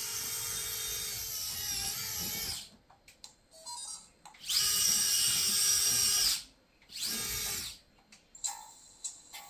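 Small electric gear motors of a Johnny 5 RC toy robot whining in three runs: a long one that stops about two and a half seconds in, another of about two seconds a little before the middle, and a short one about seven seconds in. Each winds down in pitch as it stops, with faint clicks in the gaps.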